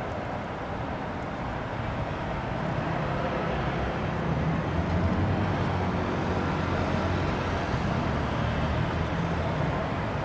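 Road traffic noise, with a low rumble that builds from about two seconds in and eases near the end, as a vehicle passes.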